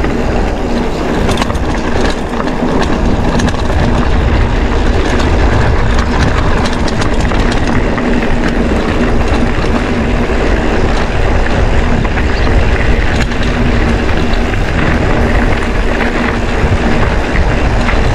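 Mountain bike rolling over a rough dirt road: a steady rumble with many small clicks and rattles as the tyres run over loose stones and the bike jolts over bumps.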